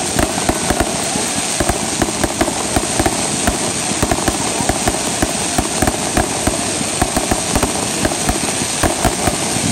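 Ground fountain firework spraying sparks: a steady hiss over dense, irregular crackling.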